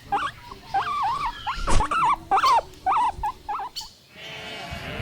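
Guinea pig squeaking: a quick run of short, pitch-gliding squeaks with a single knock partway through, stopping shortly before the end.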